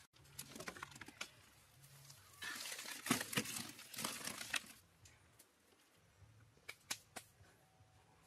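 Hands handling food or material: a few light clicks, then about two seconds of dense rustling and crinkling mixed with sharp clicks around the middle, and a few sharp ticks near the end.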